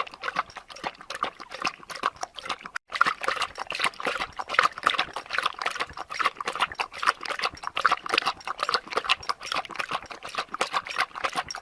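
Dog lapping water from a bowl: a rapid, continuous run of wet laps and splashes, broken by a brief gap about three seconds in.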